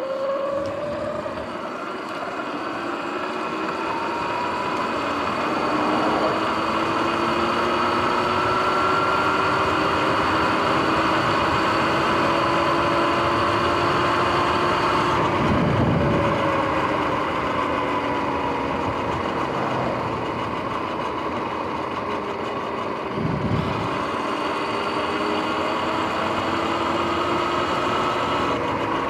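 Sur-Ron X electric dirt bike riding along, its motor and drivetrain whining in several tones that rise and fall with speed over wind and tyre noise; the whine includes the bike's noisy bearings. Two low whooshes of passing cars a little past halfway and again a few seconds later.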